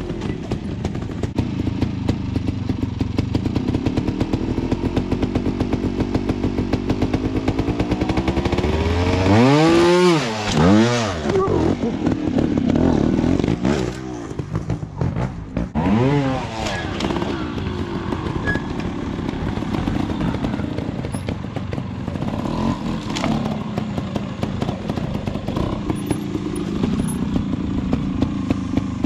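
Trials motorcycle engine running at low revs, its pitch slowly climbing for a few seconds, then sharply blipped twice in quick succession about ten seconds in and once more around sixteen seconds.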